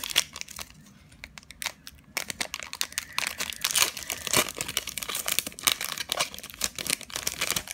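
Foil wrapper of a Pokémon Sun & Moon booster pack crinkling as it is handled and torn open by hand. There are a few scattered crackles at first, then a dense run of crackling from about two seconds in.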